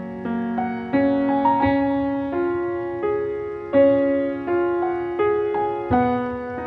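Background piano music: a slow, gentle melody with notes struck about once or twice a second, each ringing and fading away.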